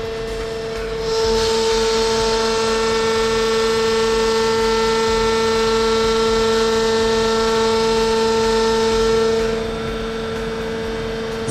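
Sandvik DE140i fully hydraulic core drill rig running with a steady whine. From about a second in until near the end, a louder even hiss joins it as the rig works, then drops away.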